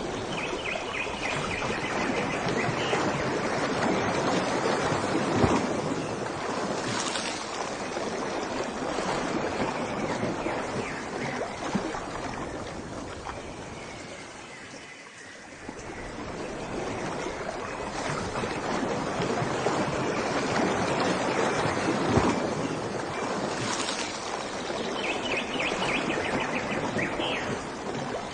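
Rushing water, a steady roar that swells and ebbs slowly, with a short high-pitched trill near the start and again near the end.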